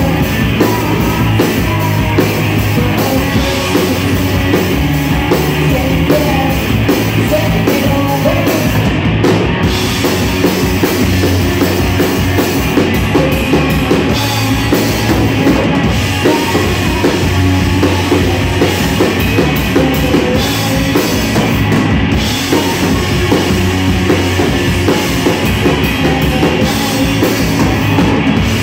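Live rock band playing loud, with electric guitars over a drum kit.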